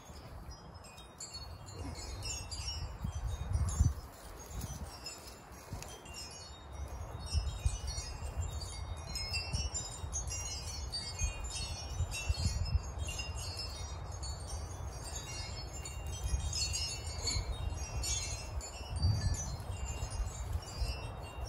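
Metal wind chimes tinkling irregularly in the breeze, many short high rings overlapping, over a low uneven rumble.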